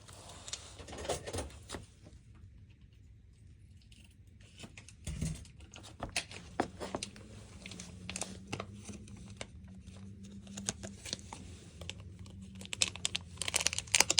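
A cat chewing bonito treats: irregular small crunches and clicks, coming faster near the end.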